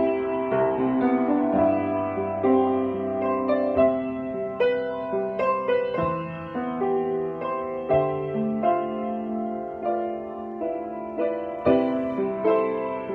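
Vose & Sons grand piano played with its lid raised: a melody over held chords, the notes ringing on into one another.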